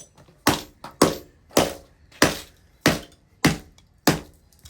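Laptop LCD screen being smashed with about eight hard, evenly paced blows, roughly one every half second or so, each a sharp crack with a glassy crunch.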